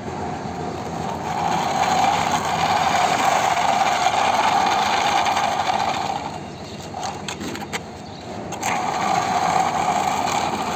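Plastic toy vehicles pushed by hand across gritty concrete, their wheels giving a steady whirring hum with a rough scraping hiss. The hum breaks off about six seconds in, a few clicks come as a toy is handled, and it starts again about two seconds later.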